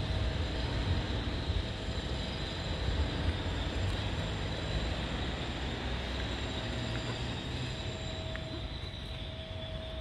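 Steady background rumble and hiss with a faint, steady high tone, unbroken throughout.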